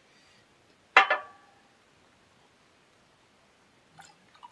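A single sharp glass clink about a second in, ringing briefly as a glass whisky bottle knocks against a glass mug or is set down on the table. Faint splashing near the end as water starts pouring from a plastic bottle into the glass mug.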